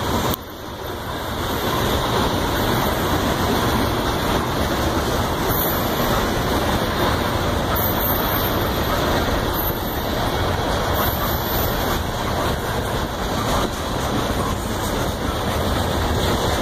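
Freight train cars rolling past close by, a steady loud noise of wheels on rails.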